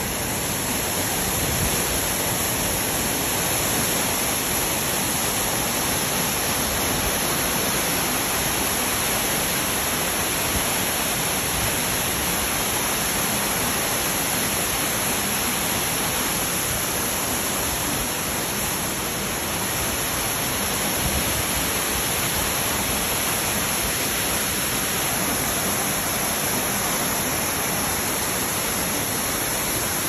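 A waterfall rushing down over rock ledges in a steady, full rush of white water.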